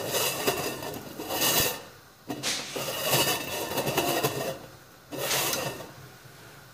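Stainless steel lid of an Amway wok turned by its knob on the pan's rim, metal rubbing on metal in about four rasping swishes, the longest lasting about two seconds.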